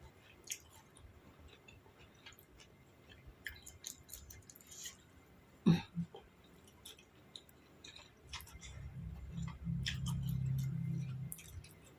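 Close-up eating sounds: chewing on seafood papaya salad and crunchy raw vegetables, with scattered small mouth clicks and smacks. There is a single sharp knock about halfway through, and a low hum lasting about three seconds near the end.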